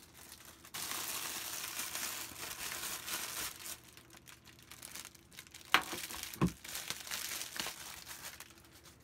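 Clear plastic bag crinkling as it is handled and pulled off a coiled charging cable. The crinkling is loudest for the first few seconds and then thins to lighter rustling, with a couple of sharp knocks about two-thirds of the way through.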